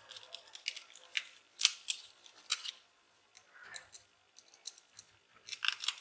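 Small screwdriver working the screws of a laptop hard-drive caddy: a scatter of light metallic clicks and scrapes, with a short pause past the middle and a quick run of clicks near the end.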